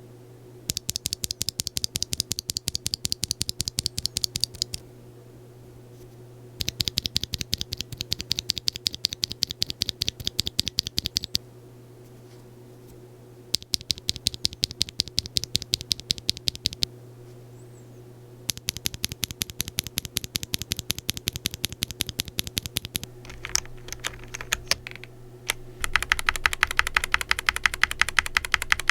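Tactile mechanical keyboard switches in a Glorious GMMK 2 65% keyboard being typed on: fast keystrokes in runs of a few seconds separated by short pauses. The last run, near the end, is louder and deeper. A faint steady hum lies underneath.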